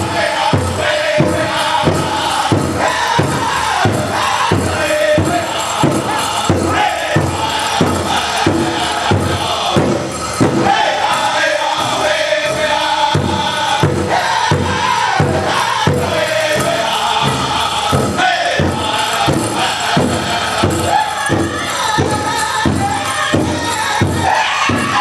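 Powwow drum group singing a chicken dance song: several voices chanting high over a big drum struck steadily about twice a second.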